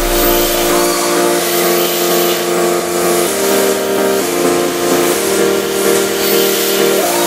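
Electronic background music: sustained, buzzy low synth chords that step to a new pitch every second or so.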